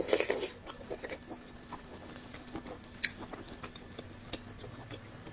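Close-miked eating: a louder burst of mouth noise in the first half-second, then soft chewing with scattered wet clicks and smacks.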